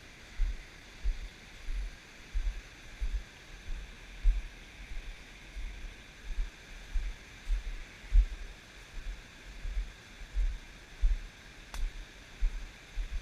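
Creek water running steadily over stones, with low thumps about every two-thirds of a second and a single click near the end.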